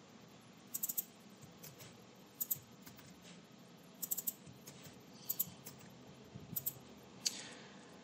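Faint computer keyboard keystrokes and clicks, a few at a time with pauses between, as a login and password are typed in.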